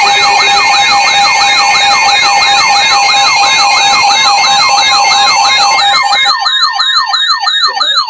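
Loud electronic alert siren repeating a quick downward sweep about three and a half times a second over steady tones. About six seconds in, the steady tones drop out and a fast pulsing joins the sweeps. It is the alert signal that heralds a severe thunderstorm warning.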